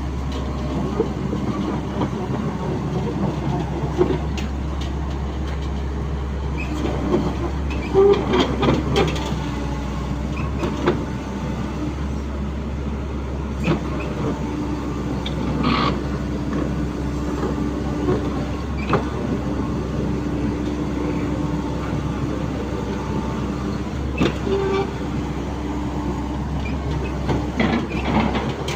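Hitachi Zaxis 138MF excavator working, its diesel engine running steadily under a held hydraulic whine, with scattered metallic clanks and squeals from the machine. The clanks come loudest and closest together about eight to nine seconds in.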